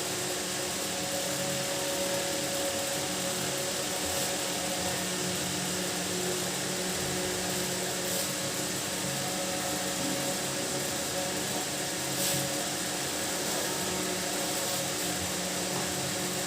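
A small motor running steadily, a constant hum over a hiss, with a few faint clicks.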